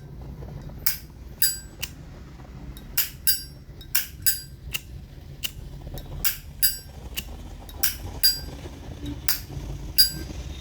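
Vintage 1976 brass Zippo lighter's lid flipped open and snapped shut again and again: a run of sharp metallic clicks at an uneven pace, many with a short ringing ping.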